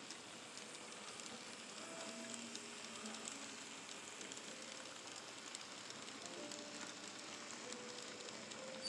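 N scale model Amtrak passenger cars rolling along the track: a faint, steady rattling hiss with many light clicks from the small wheels running over the rails.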